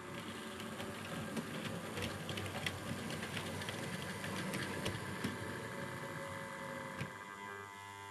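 Model diesel locomotive running toward the listener: its small electric motor whirs steadily while the wheels give irregular clicks over the rail joints and points, most of them in the middle of the run.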